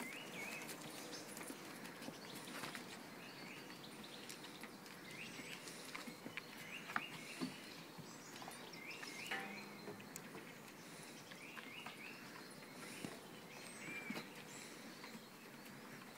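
Faint outdoor ambience with small birds chirping now and then in short hooked chirps, and occasional light taps and clicks.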